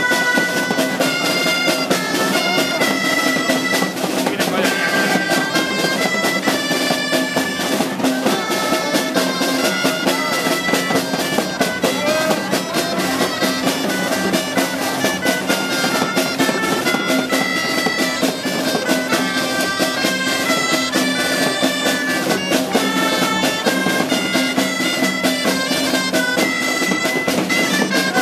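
Reedy pipes playing a quick, stepped folk melody over a drum beat, with a steady low note held beneath; the music is continuous and loud.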